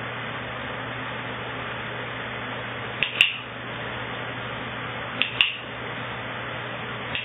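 A training clicker pressed three times, about two seconds apart. Each press is a quick double click, the press and release of the clicker's metal tab, marking the dog's correct response. A steady hiss runs underneath.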